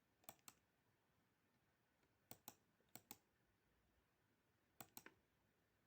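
Faint computer mouse clicks: four double-clicks, each two quick clicks close together, spread over a few seconds.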